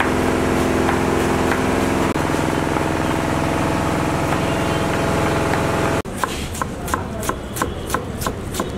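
A steady engine-like hum with faint knife taps under it; about six seconds in the hum cuts out, and a kitchen knife slices a tomato on a chopping board in quick, even strokes, about three a second.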